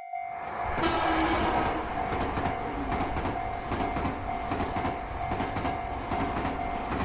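A train passing through a railroad crossing: a loud rush of rail noise that swells in during the first second, with wheels clattering unevenly over the rail joints. The crossing bell's repeated ding-ding carries on faintly underneath.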